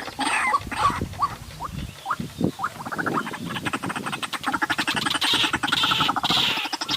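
White-breasted waterhen calling: a few short gliding notes at first, then from about three seconds in a fast, even run of croaking pulses that carries on.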